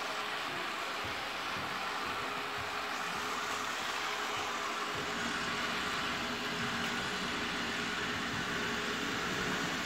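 Model train running on the layout's track: a steady whir from its small electric motor and the rumble of its wheels on the rails, with a faint hum.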